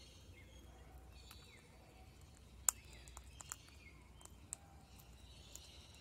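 Faint chirping of birds in the background, with a few sharp clicks; the loudest click comes about two and a half seconds in.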